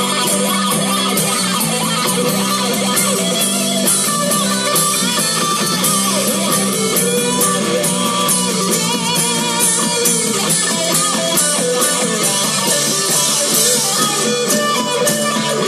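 Live rock band playing an instrumental passage led by guitar, with strummed and electric guitar over the band.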